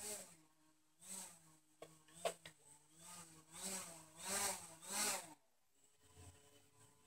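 JJRC X1 quadcopter's motors whirring in several rising-and-falling surges over a steady hum, with a few sharp clicks about two seconds in, then stopping about five seconds in. The drone is failing to lift off because one propeller doesn't spin.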